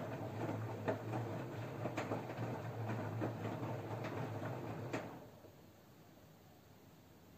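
Front-loading washing machine running a wash: a steady motor hum under the rumble and clatter of wet laundry tumbling in the drum, with many small knocks, until the drum stops about five seconds in.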